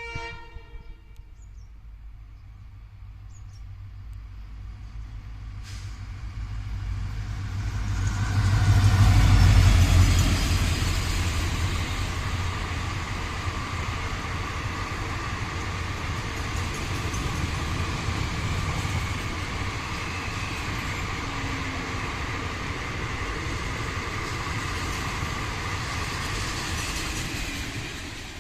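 Diesel-hauled passenger train passing by: a short horn note at the start, the locomotive's engine rumble building to a peak about ten seconds in, then the steady rolling noise of the coaches going past, which drops away near the end.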